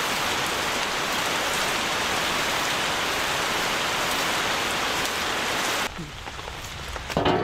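Heavy rain pouring and dripping off a roof edge, a steady hiss that drops away suddenly about six seconds in to softer rain, with a short louder burst near the end.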